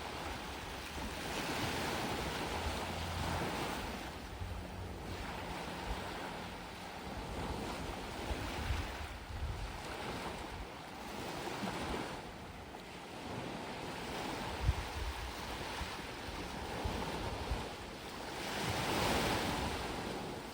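Gentle waves washing onto a sandy beach: a steady surf hiss that swells and eases several times as waves break on the sand.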